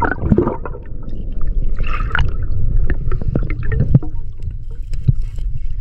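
Muffled underwater sound of a scuba diver swimming near the river bottom: a steady low rumble with scattered clicks and a brief burst of bubbles about two seconds in.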